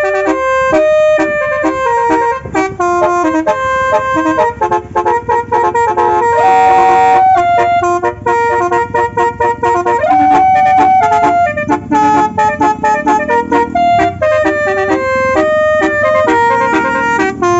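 Basuri multi-tone car horn on a Toyota Starlet playing a melody, note after note in steady steps.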